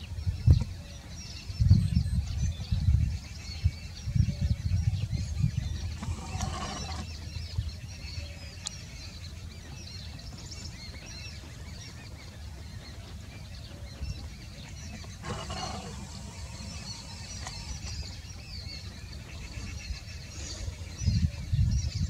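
Outdoor ambience: wind buffeting the microphone in low rumbling gusts, with birds chirping throughout.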